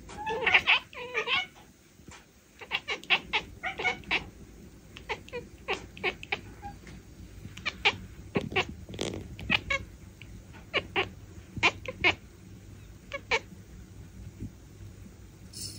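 Calico cat chattering: a quick run of short chirps and clicks in the first second or so, then scattered single chirps and short runs until near the end.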